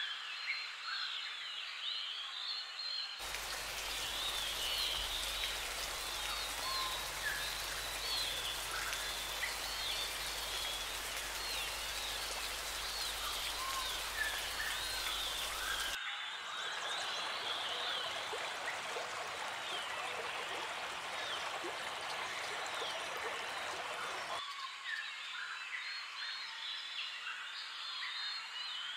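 Jungle ambience of many quick chirping calls from small wildlife. From about three seconds in until about halfway, a loud, full rushing of falling water from a waterfall runs under the chirps. After that comes a softer steady rush, which stops a few seconds before the end.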